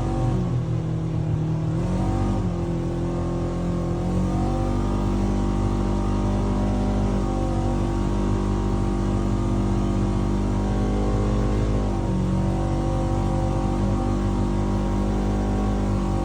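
Polaris RZR 900 UTV's twin-cylinder engine running under load, driving on sand dunes. The engine note dips and climbs again a few times in the first four seconds and again about twelve seconds in.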